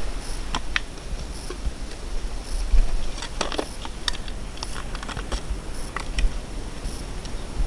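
Light clatter of bowls and plastic food containers being handled and set down on dirt: scattered short taps and clinks, busiest about three and a half seconds in, over a steady low rumble.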